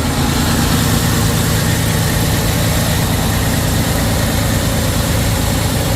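Heavy-duty diesel engine of a Freightliner Cascadia semi truck idling steadily while the newly fitted air dryer is tested for air leaks.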